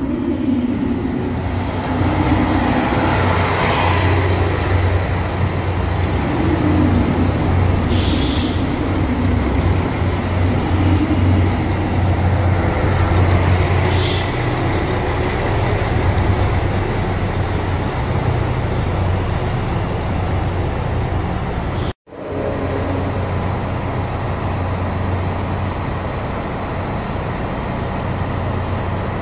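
Diesel train engine running with a steady low drone as the train moves along the platform. Two short hisses of air are heard about eight and fourteen seconds in, with a thin high whine after the first. After a sudden break, a diesel train is heard idling at a platform.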